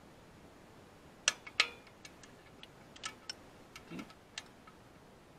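Hand ratchet on a socket extension working at the clutch and flywheel bolts: sharp metallic clicks and clinks at uneven intervals, the two loudest about a second and a half in, one with a short ring, and a duller knock near four seconds.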